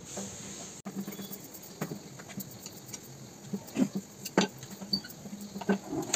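Irregular light taps and clicks of kitchen utensils against pans, with a few sharper knocks in the second half.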